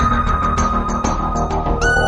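Music with a heavy bass and a drum beat under a long held high note; a new, higher note comes in near the end.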